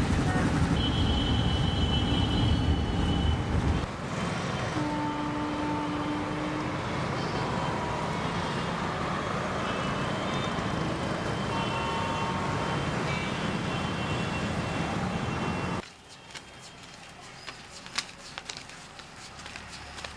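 Motorcycle engine running, then busy street traffic with several long vehicle horn toots. About sixteen seconds in it cuts to a quiet room with a few sharp clicks and rustles as banknotes are handled.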